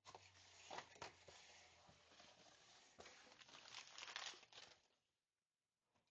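Packaging being handled, crinkling and tearing, with many small crackles; it dies away about five seconds in.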